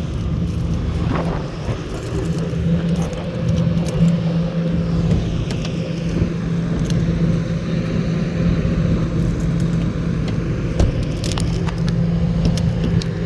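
A vehicle engine running with a steady hum over a low rumble, with scattered light clicks.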